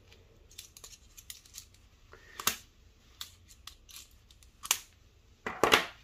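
Metal hand tools (a driver handle, a ratchet and Torx bits) handled and set down on a wooden tabletop: scattered light clicks and taps, the sharpest about two and a half seconds in and just before five seconds, with a duller knock near the end.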